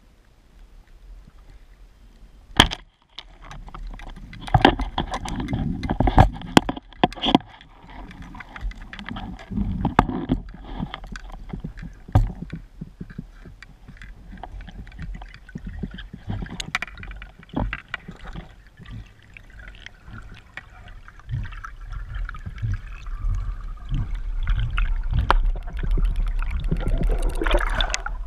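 Underwater noise of water moving and gurgling around a speargun-mounted camera as the diver swims, with a steady low rumble and scattered sharp clicks and knocks.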